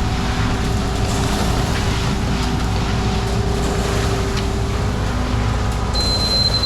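Concrete pump truck's diesel engine running steadily under load. A thin, high steady whine starts near the end.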